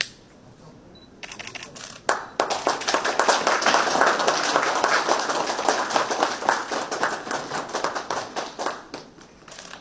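Audience applauding, swelling about two seconds in and dying away near the end.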